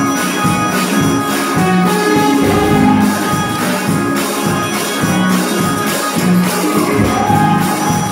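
Live church music: an electronic keyboard plays sustained chords while a tambourine shakes along in a steady rhythm.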